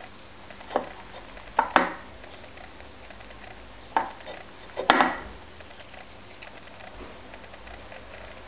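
Lop-eared rabbit eating kale from a ceramic bowl: quick, crisp crunching and nibbling, with several louder clinks and knocks of the bowl, clustered about one to two seconds and four to five seconds in.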